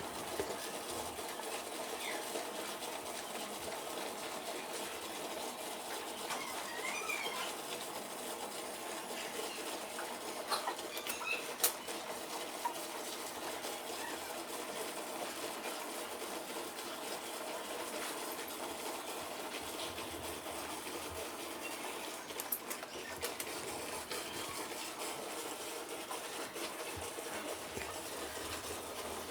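Bucket-type milking machine running during milking, a steady mechanical hum with a few sharp clicks and knocks about a third of the way in and again past the middle.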